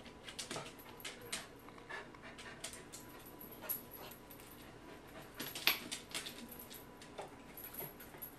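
Pembroke Welsh corgi panting and moving about, with scattered light clicks and scratches, and one sharper click a little past halfway.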